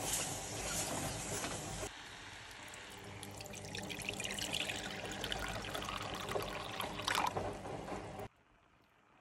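A wooden spoon scrapes and stirs thick gochujang and sugar paste in a pot for about two seconds. Then water is poured into the pot in a steady stream, its sound rising in pitch as the pot fills, and it stops abruptly shortly before the end.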